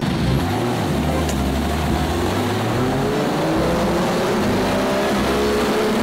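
Engine of a mud-covered off-road jeep buggy revving as it drives through water, its pitch climbing in the second half, over a steady hiss of spray thrown up by the tyres.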